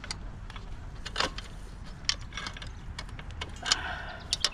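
Pit bike roller chain clinking and rattling in irregular small clicks as it is handled and worked around the sprockets by hand, with louder clinks about a second in and near the end.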